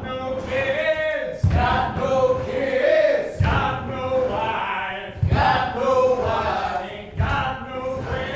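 Group of men singing a cappella in the style of a chain-gang work song, with a heavy thud landing on the beat about every two seconds.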